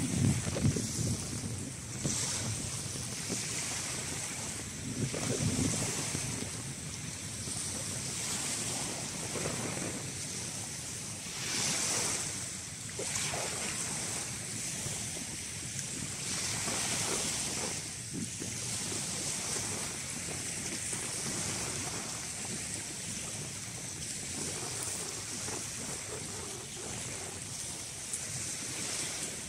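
Small waves washing onto a shingle beach, swelling and falling back every few seconds, with wind buffeting the microphone, strongest near the start and about five seconds in.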